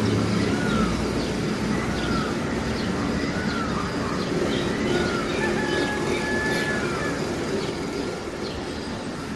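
Steady background rumble and hiss, with a short rising-and-falling chirp repeated about every second and a half, and a longer level whistle a little past the middle.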